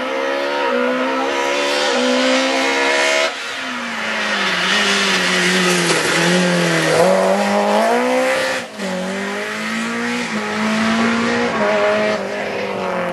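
Rally car engine at high revs, its pitch rising and falling as it changes gear and takes a bend. The sound drops suddenly about three seconds in and dips sharply again near nine seconds.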